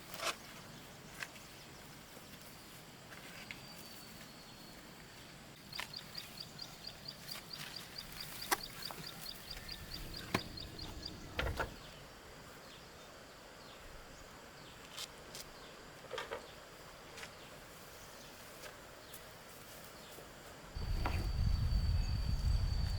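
Scattered light knocks and taps over quiet outdoor ambience, with a rapid high pulsed trill for about five seconds. About 21 seconds in, a steady low rush and a steady high thin tone start suddenly.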